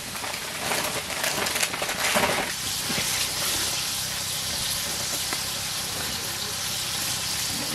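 Chunks of venison with onions frying in a steel pan, settling into a steady sizzle after about two seconds.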